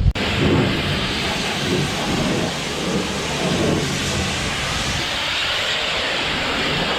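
John Deere combine harvester running steadily: a constant machine rumble with a broad hiss over it.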